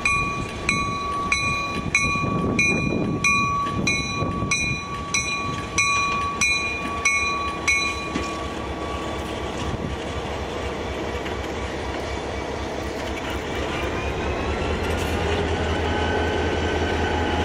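EMD GP30 diesel-electric locomotive's bell ringing steadily, about one and a half strikes a second, until about eight seconds in, over the rumble of its turbocharged V16 diesel. Near the end the engine note rises with a climbing whine as the locomotive powers up.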